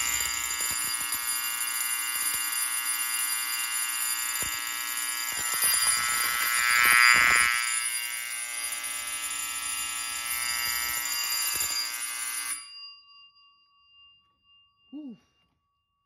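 Electric fire alarm bell and a second fire alarm sounding together: a loud, continuous ringing that cuts off suddenly about twelve and a half seconds in, after which a faint steady ringing lingers, the bell's gong still sounding.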